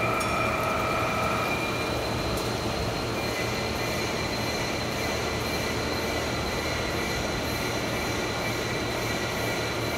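Floor-type horizontal boring mill machining the bore of a large metal housing: a steady mechanical drone with a thin high whine. A mid-pitched whine fades out about one and a half seconds in.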